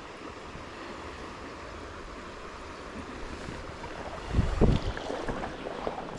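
Steady rush of river water. About four seconds in comes a loud, low burst of wind buffeting the microphone, followed by scattered small clicks.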